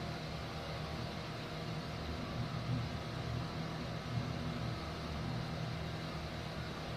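Steady low mechanical hum with an even background hiss, unchanging throughout.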